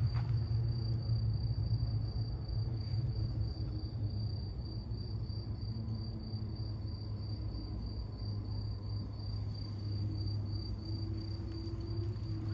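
A cricket chirping steadily, one high, evenly pulsed note, over a low steady rumble.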